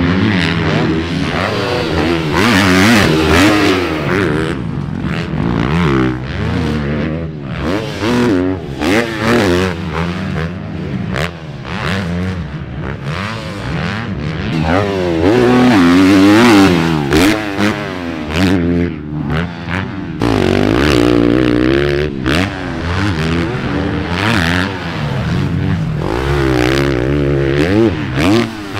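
Motocross bike engines revving hard around a supercross track, the pitch repeatedly climbing and dropping as the riders work the throttle through jumps and corners.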